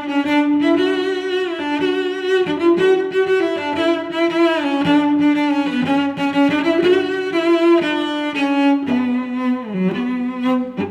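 Background music: a solo bowed string melody, cello-like, moving through sustained notes with slides and vibrato.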